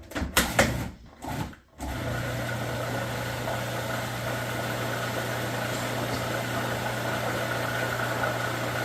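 A few knocks and clicks, then about two seconds in an electric blender's motor starts and runs steadily with a low hum, mixing cake batter.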